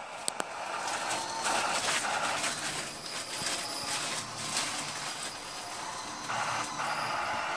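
Harsh static-like noise with scattered crackles and clicks, swelling louder in a mid-pitched band twice.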